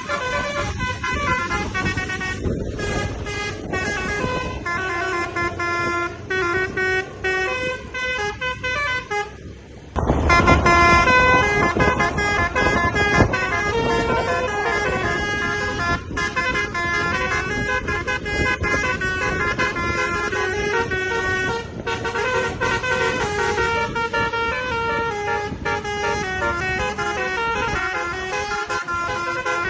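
Tour bus's multi-tone 'telolet' basuri horn playing long melodic runs, its tones stepping from pitch to pitch almost without pause. The sound jumps suddenly louder about ten seconds in.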